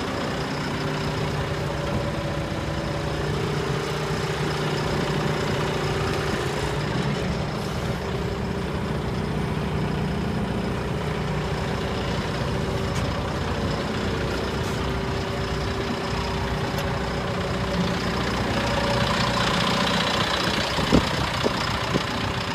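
John Deere 310L backhoe's four-cylinder PowerTech diesel engine running steadily, its tone shifting a few times. A few sharp knocks come near the end.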